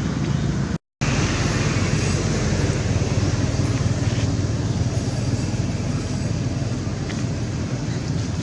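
Steady, low rumbling background noise, broken by a brief cut to silence about a second in.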